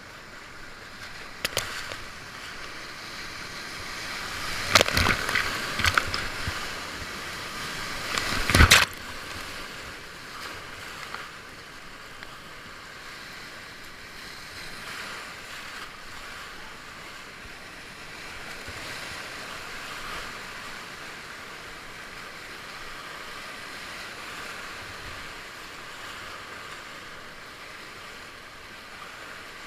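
Whitewater rapids rushing steadily around a kayak, with a few loud, sharp splashes in the first nine seconds, then the water runs on evenly.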